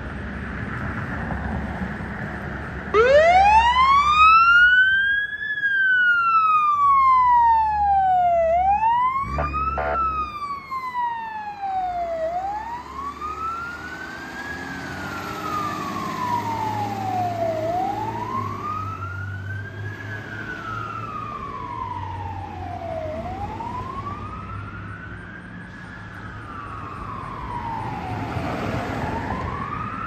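Fire engine siren starting about three seconds in, sweeping up and then wailing slowly up and down, about one rise and fall every five to six seconds, with the truck's engine rumbling underneath. A short blast sounds about ten seconds in. The siren is loudest in its first few seconds.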